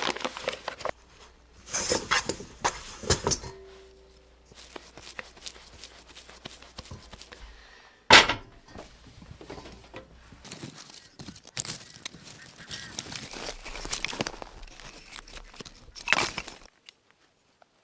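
Knocks and clatter from handling the parts of a wood-fired pizza oven, with one sharp loud knock about eight seconds in.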